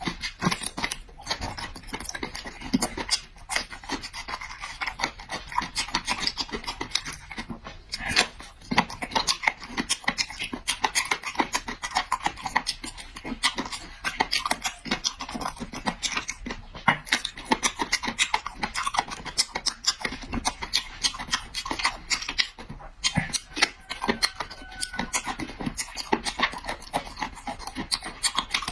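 Close-miked eating: rapid crunching and smacking of food being chewed, a dense run of small clicks with no pause.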